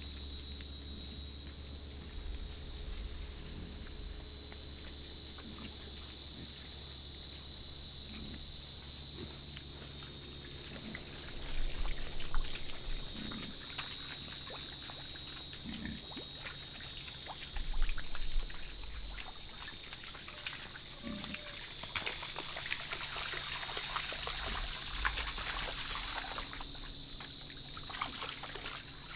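Insects buzzing in a high, steady chorus that swells and fades twice, with scattered light clicks and rustles around the middle.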